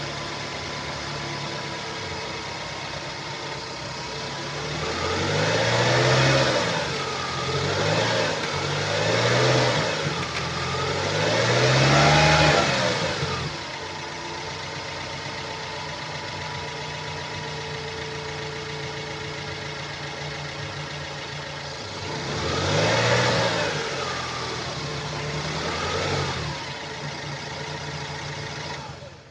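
BMW 116i E81's 2.0-litre four-cylinder petrol engine (N43B20A) idling and blipped briefly about six times, four quick revs in a row and then two more. The unusual engine noise is put down by the seller to a failed connecting-rod bearing on the crankshaft.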